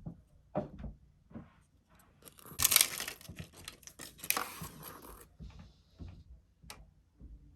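Packaging being torn open by hand: a few light handling knocks, then about three seconds of tearing and crinkling from around two seconds in.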